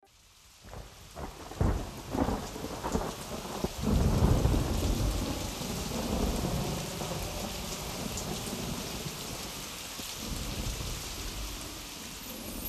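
Heavy rain and thunder. The sound fades in, with a few sharp thunder cracks and a low rumble in the first four seconds, then steady heavy rain.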